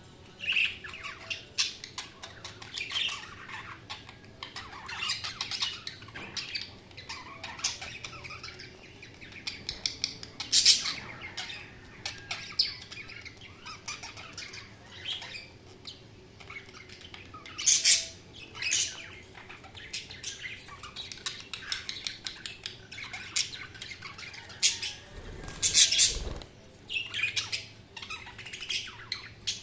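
Several budgerigars chattering and chirping continuously, with frequent loud, sharp squawks breaking through the warbling. A brief low rumble sounds about three-quarters of the way in.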